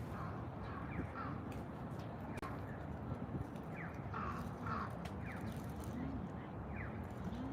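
Crows cawing repeatedly amid short, quick chirps of small birds, over a steady low background hum.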